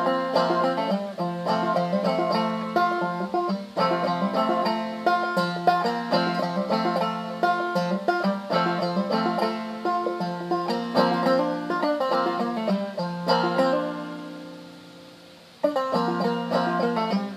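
Five-string banjo played clawhammer style, a steady run of plucked melody notes over a repeated low note. Near the end the notes ring out and fade for about a second and a half before the playing picks up again.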